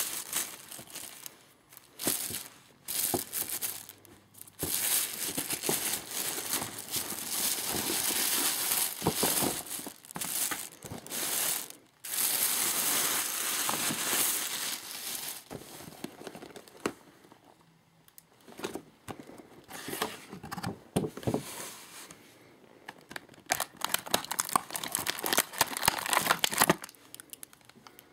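Thin plastic shopping bag and toy packaging rustling and crinkling as they are handled, in irregular bursts with short pauses; the longest and loudest stretches come in the middle, and the handling turns sparser toward the end.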